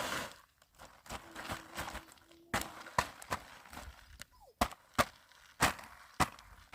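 A series of about eight sharp chopping strikes on wood, coming irregularly from a couple of seconds in, the last one the loudest.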